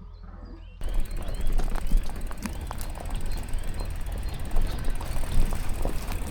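Mountain bike on rough ground: a busy run of clicks and rattles over a steady low rumble of wind on the microphone, starting about a second in.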